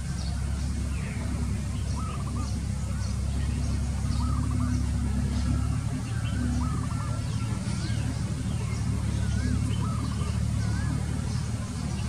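Wild birds calling: short wavering whistled phrases repeat every second or two, with faint high chirps. Under them runs a steady low rumble.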